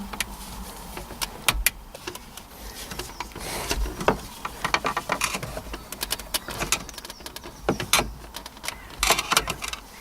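Scattered clicks, knocks and rattles of a 2009 Toyota Verso radio unit being tugged and pried at against the clips that hold it in the dashboard.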